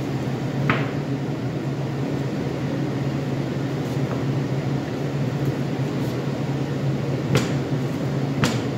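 Steady low machine hum, with three short sharp taps of a knife on a plastic cutting board as fat is trimmed from rib steaks: one about a second in and two near the end.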